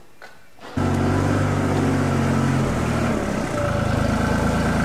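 An engine running steadily at idle, starting abruptly about a second in, its note shifting briefly around the middle.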